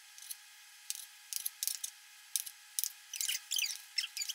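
Kitchen knife slicing through a store-bought angel food cake on a plastic cutting board: a run of short, scratchy strokes, several a second.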